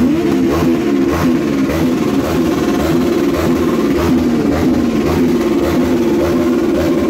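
Several sportbike engines revving, their pitch wavering up and down. Over the last couple of seconds one engine is held at a steady high pitch, pinned at high revs for a tyre-smoking burnout.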